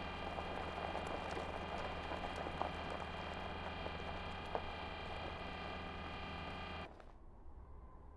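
Sound-designed mechanical hum of the animated Curiosity rover's motors, with a gritty crackle and a few sharp clicks like wheels over gravel. It cuts off sharply about seven seconds in, leaving only a faint low rumble.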